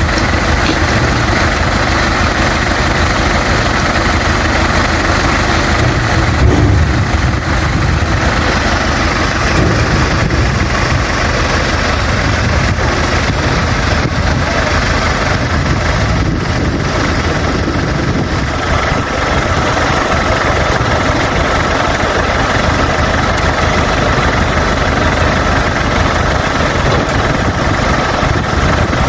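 A parked truck's engine idling steadily, with a brief louder low thud about six and a half seconds in.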